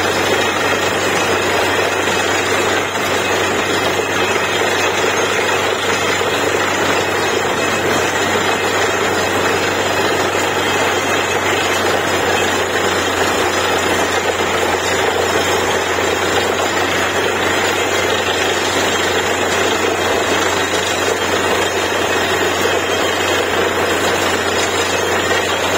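Truck-mounted borewell drilling rig running steadily, its compressed air blowing a spray of water and rock cuttings out of the borehole: the bore has struck water.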